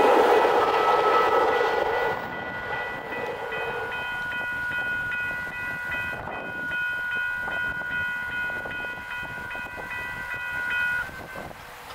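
Railroad crossing signal bells ringing in quick repeated strokes while a passing train's wheel noise dies away over the first couple of seconds. The bells stop shortly before the end.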